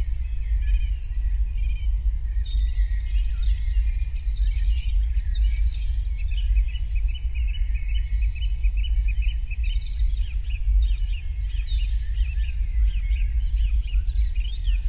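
Forest ambience: several songbirds singing and chirping, with a fast trill of repeated notes in the middle, over a steady low rumble.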